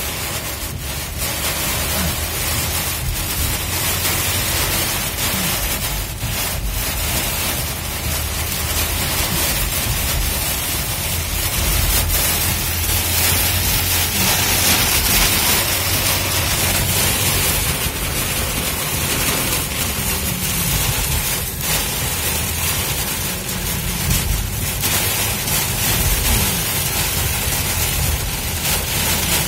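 Torrential rain hitting the roof and windshield of a car at highway speed, heard from inside the cabin. It is a steady, loud hiss over the low rumble of tyres on the flooded road.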